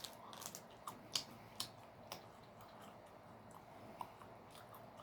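Faint, scattered small clicks, about half a dozen spread over a few seconds, over low room noise.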